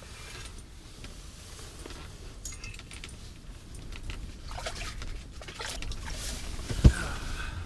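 Faint clicks and rustles of a spinning reel being worked on a hooked whitefish, with water sloshing in the ice hole as the fish comes up. One sharp thump about seven seconds in is the loudest sound.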